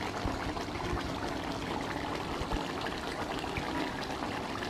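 Beef liver stew in sweet soy sauce simmering in a pan: steady bubbling with scattered small pops.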